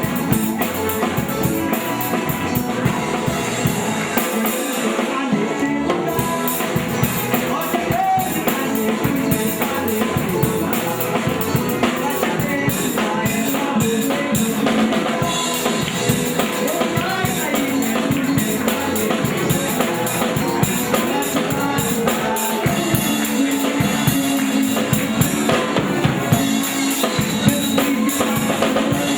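Live band playing an instrumental passage: a drum kit keeps a steady beat up front, over electric guitar, bass and keyboard.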